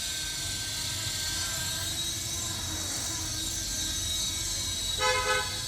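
An electric RC helicopter's motors and rotors running with a steady high whine. Near the end comes a short, pitched beep of about half a second, the loudest moment.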